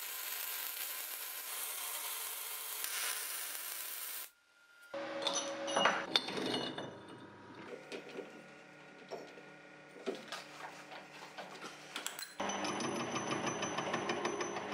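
Electric arc welding on steel, a steady crackling hiss for about four seconds that stops abruptly. Then metal clanks and clicks as a steel disc is set in a lathe's three-jaw chuck. About twelve seconds in, the metal lathe starts and runs with a steady hum as the tool faces the spinning disc.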